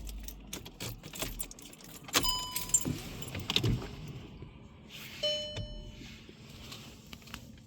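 Car key jangling and clicking in the ignition as it is turned on, with two short electronic beeps, one about two seconds in and a lower one about five seconds in.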